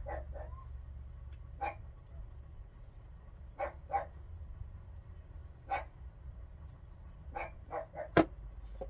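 A dog gives short whines and yips every second or two over a low steady hum. Faint gritty rattling comes from a glass salt shaker being shaken over the fish. There is a single sharp click near the end.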